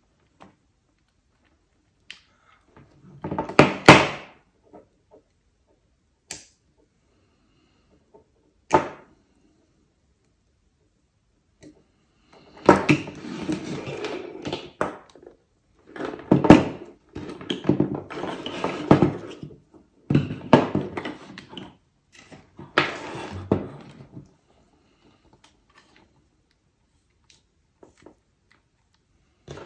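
Handling noises of the Minelab Excalibur II's housing parts being fitted together by hand: knocks, clicks and rubbing, in a short burst about four seconds in and a longer busy stretch from about twelve to twenty-four seconds, quiet in between.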